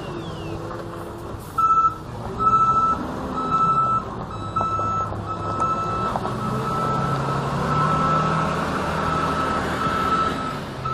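Forklift's reversing alarm beeping in a single high tone about once a second, starting about a second and a half in, over the forklift's engine running.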